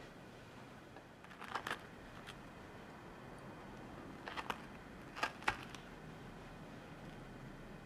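Quiet kitchen handling sounds: a few short, light clicks and taps in small clusters as espresso-dipped ladyfingers are set down in a ceramic baking dish.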